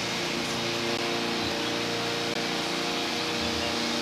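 A steady mechanical hum of several held tones under an even hiss, with no distinct events.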